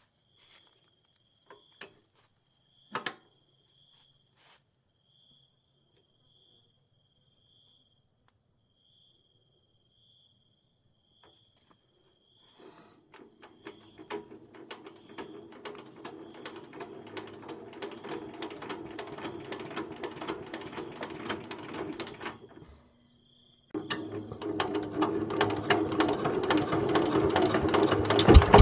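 Chainsaw's two-stroke engine running with a rapid ticking rhythm. It starts about halfway through, cuts out for about a second near the end and comes back louder. Before it, faint insects chirp steadily and there is a single click.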